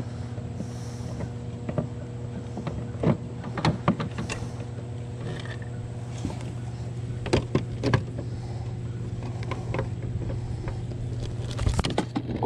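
Hard plastic knocks and clatter as a bass and a plastic fish-measuring board are handled in a plastic kayak, a handful of sharp clunks spread through, over a steady low electric hum.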